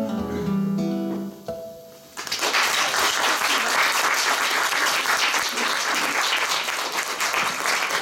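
Acoustic guitar playing the last notes of a song and dying away, then audience applause starting about two seconds in and continuing.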